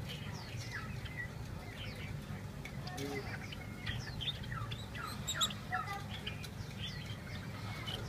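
A cage of Java sparrows chirping: many short, quick, falling chirps overlapping, busiest in the middle, over a steady low background rumble.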